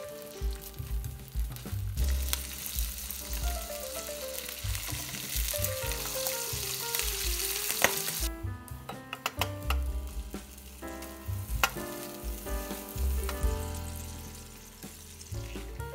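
Sausage slices and hot dogs sizzling in hot oil in a frying pan, a dense steady hiss that drops away sharply about eight seconds in. Light background music plays throughout.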